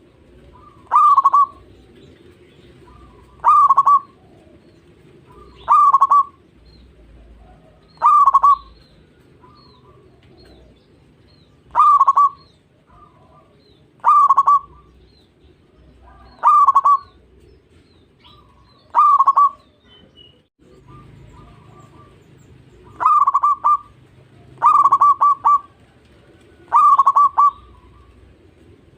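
Zebra dove (perkutut) cooing: short rolling coo phrases repeated about every two to two and a half seconds, about a dozen in all, with the phrases coming slightly closer together near the end.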